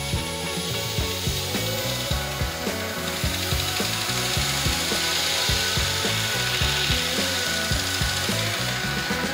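A cloth loaded with Yorkshire grit abrasive paste rubbing on an ash bowl spinning on a wood lathe: a steady hiss that grows louder from about three seconds in. Background music with a quick, stepping bass line runs underneath.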